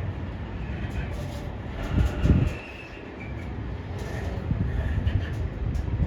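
Container freight train running past: a steady low rumble of wheels on the rails with scattered clicks and clatter, and a louder low thump-like surge about two seconds in.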